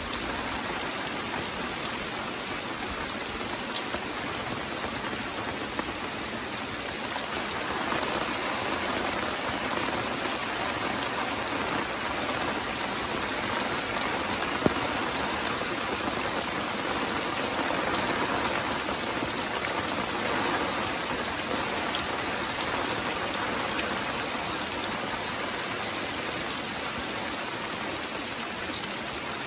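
Steady rain falling and pattering on surfaces, growing a little heavier for a while in the middle. A single sharp tap stands out about halfway through.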